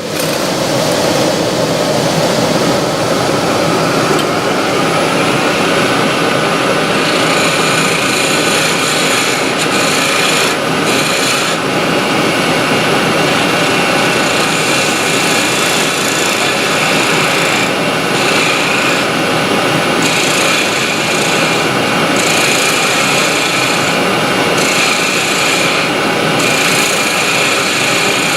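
A Union Jubilee wood lathe and a dust extractor start up together and run steadily. From about seven seconds in, a small turning tool scrapes against a spinning wood spindle, making a higher cutting sound that stops and restarts several times as the tool is lifted and set back on the wood.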